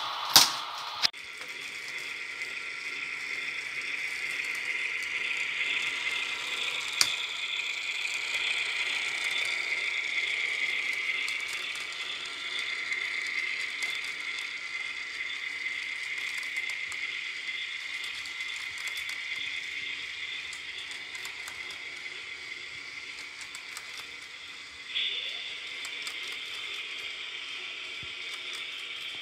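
HO-scale model freight cars rolling past on the track: a steady rattling hiss of small metal wheels on the rails, with scattered clicks as they cross rail joints. The sound grows a little louder about 25 seconds in.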